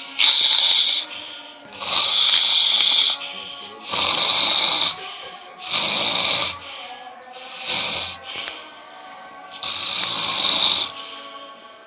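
A person snoring loudly, six snores about two seconds apart, with faint steady background music.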